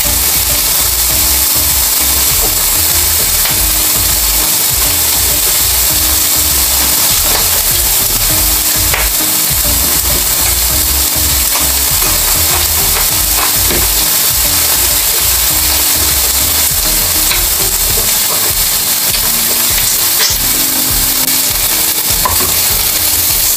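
Pork steak slices sizzling steadily on a ridged grill pan, with a few light clicks of utensils.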